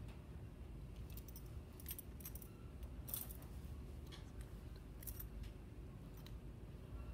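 Quiet room tone: a steady low hum with scattered short rustles and clicks of paper and small objects being handled.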